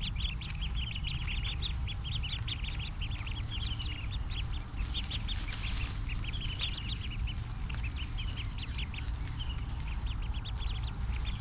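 A flock of domestic ducklings peeping, many short high peeps overlapping in quick succession, over a low steady rumble.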